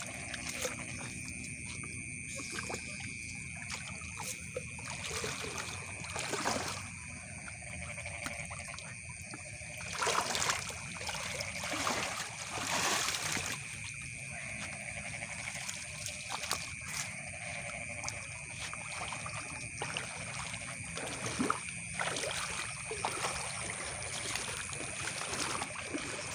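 Shallow water trickling and splashing, with louder splashes about six, ten and twelve seconds in. A steady high-pitched insect chorus from the rice field runs underneath.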